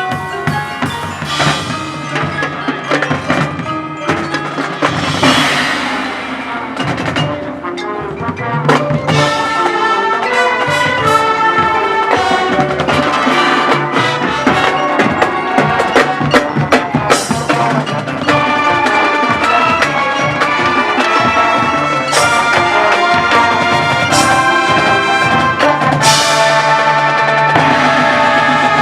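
Marching band playing: brass melody over mallet percussion and drums, growing louder and fuller about eight seconds in.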